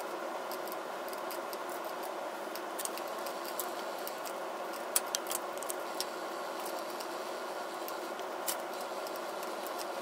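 Steady indoor room hum and hiss, with scattered small clicks and ticks from the camera being handled. The sharpest click comes about halfway through and another near the end.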